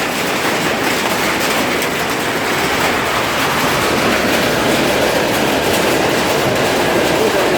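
Hailstones pelting down in a dense, steady clatter.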